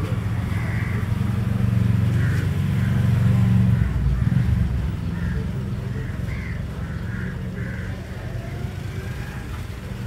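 A motor vehicle's engine rumble passing by: it swells over the first few seconds, is loudest about three to four seconds in, then fades away.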